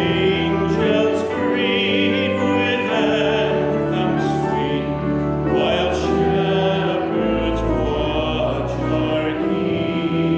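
Voices singing a hymn together over instrumental accompaniment, with long held notes.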